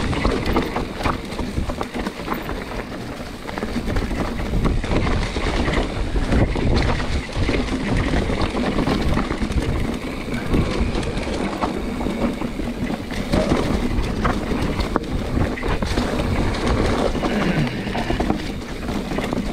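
Mountain bike riding over a leaf-covered, rocky trail: tyres rolling through dry leaves and over stone slabs, with frequent clicks and knocks from the bike. Wind rumble on the handlebar camera's microphone.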